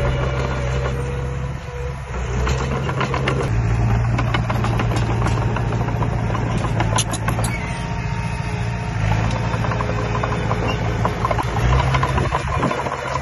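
Diesel engine of heavy construction equipment running steadily, its note shifting a few times, with scattered clanks and rattles.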